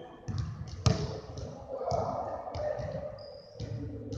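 Basketballs bouncing on a hardwood gym floor: a series of separate thuds with some echo, the loudest about a second in.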